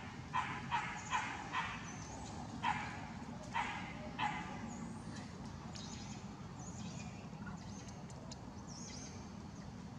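A run of short, sharp animal barks, about eight in the first four and a half seconds at uneven spacing, then faint high chirps for the rest.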